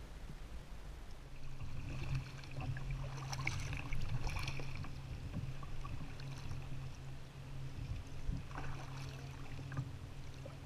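Kayak paddle strokes splashing, with water lapping along a sit-on-top fishing kayak's hull as it moves. Under it runs a steady low hum from about a second in.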